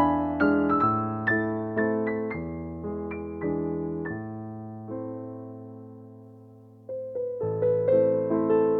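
Background piano music: a gentle melody of single struck notes, with a long chord dying away in the middle before the playing picks up again.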